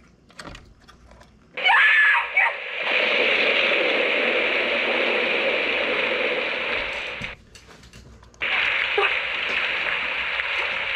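The figure's small built-in sound-box speaker playing a sound clip. It opens with a brief sharp sound about a second and a half in, then gives a steady, tinny rushing sound that cuts out about seven seconds in and starts again a second later.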